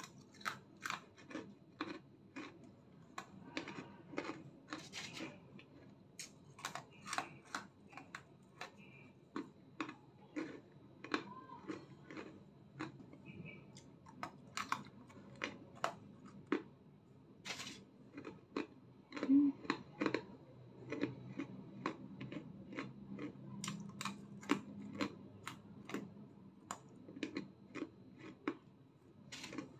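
Crunchy breadsticks being bitten and chewed close to the microphone: a quiet run of sharp, irregular crunches, a few a second.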